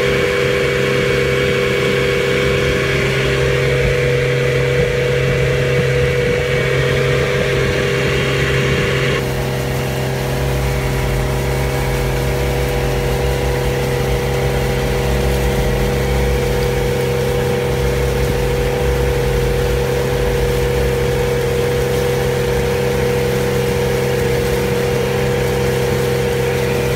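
Johnson outboard motor running steadily under way. About nine seconds in, the higher hiss drops away while the motor's steady pitch carries on.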